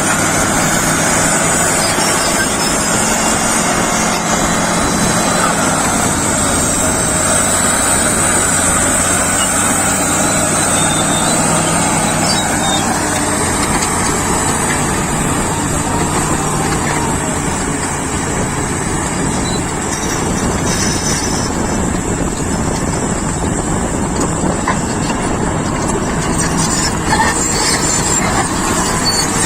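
Caterpillar D7G crawler bulldozer's six-cylinder diesel engine running steadily, with the broad rumble of the working machine throughout.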